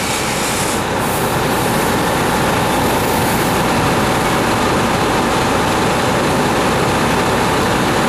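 A large engine running steadily: an even, loud rumble with a faint steady hum and no breaks.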